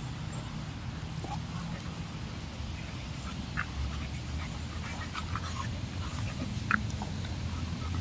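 Dogs playing rough, giving a few short, sharp yips, the loudest one near the end, over a steady low rumble.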